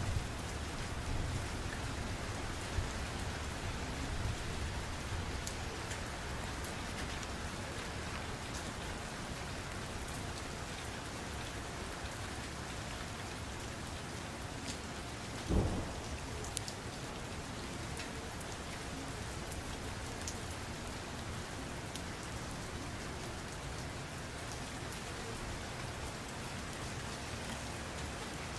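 Steady, even rain-like hiss with faint fine crackling ticks, and one short dull thump a little past halfway.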